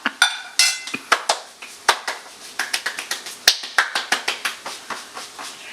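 Rapid, irregular sharp clicks and taps from a frying pan of chicken nuggets being cooked and handled, with a short hissy burst under a second in.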